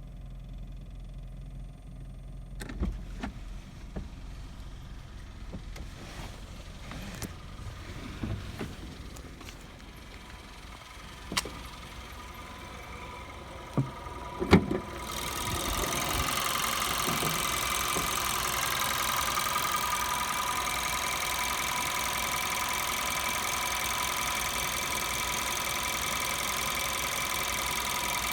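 Volkswagen Polo 6R engine: after some clicks and knocks, it starts about halfway through and settles into a steady idle. The owner hears a clattering rattle (kata-kata) at idle only, and it goes away when driving.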